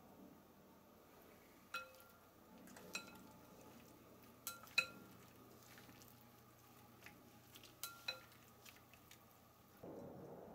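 Wooden chopsticks stirring salted napa cabbage pickles in a glass bowl, clinking against the glass about half a dozen times, each clink with a short ring.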